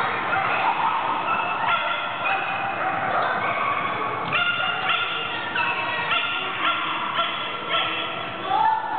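A dog barking repeatedly in high-pitched, excited barks and yips, one close after another.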